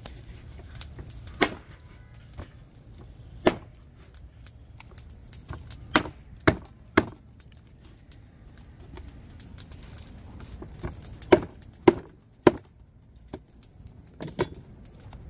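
A blade chopping onto a wooden surface: about a dozen sharp, irregular chops, several of them in quick runs of two or three.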